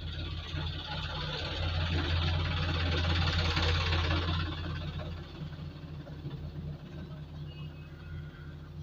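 Steady low electrical hum, with a hiss that swells up and dies away over a few seconds in the middle.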